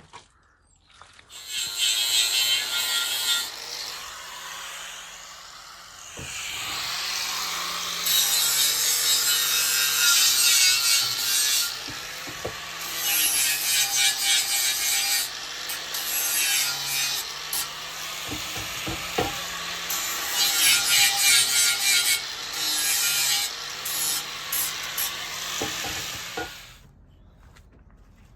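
Angle grinder cutting metal in long passes. The disc's motor note sags and recovers as the cut loads and unloads, with a harsh hiss that swells and eases, and the grinder stops near the end.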